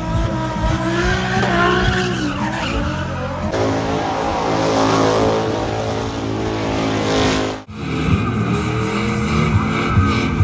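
Car engine revving hard with tyres squealing in a burnout. The sound cuts out abruptly about three-quarters of the way through, then picks up again.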